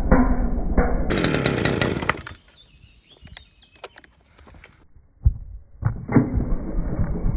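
Stihl brushcutter's small petrol engine winding down and stopping about two seconds in. After a quiet pause it is pull-started cold on the choke, with a sharp knock about five seconds in, and it is running again from about six seconds in.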